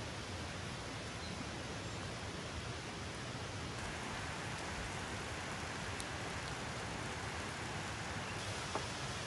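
Steady, even hiss of outdoor background noise, with a couple of faint clicks.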